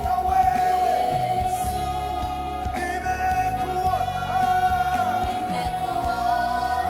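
Gospel music with singing: a voice holding a long, steady note over a band backing with a steady bass.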